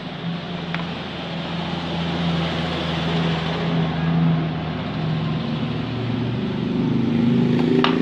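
A motor vehicle's engine running steadily with a hum, its pitch rising near the end as it speeds up. There are a couple of light clicks, one about a second in and one near the end.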